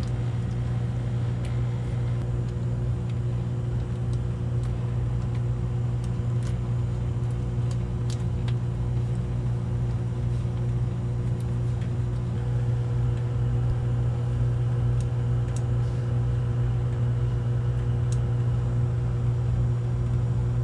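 Steady low hum of a running HVAC air handler. Scattered light clicks and rustles come from electrical tape being pulled and pressed onto a power cord.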